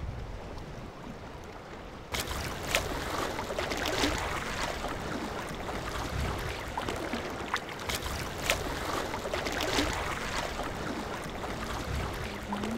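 Waterside ambience: wind noise and water lapping, with a low rumble at first, then from about two seconds in a brighter wash of irregular small splashes and clicks.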